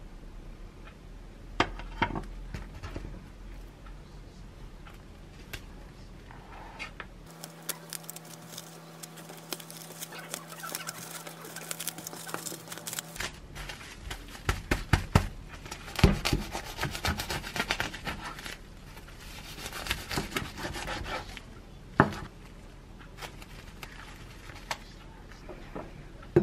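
Kitchen handling sounds: light taps as a sandwich is assembled. Then plastic cling film rustles and crinkles in a dense run of crackles as it is wrapped tightly around the sandwich, followed by a couple of single knocks.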